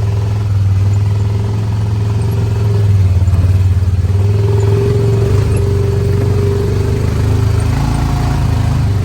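Honda Pioneer side-by-side's engine running steadily under load, climbing a steep slope in four-wheel low, with a whine over the engine note that grows stronger about halfway through.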